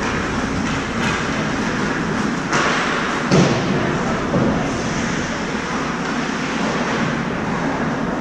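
Ice hockey rink during play: steady, echoing arena noise with scraping from skates on the ice. A dull thud comes a little over three seconds in, the loudest sound here.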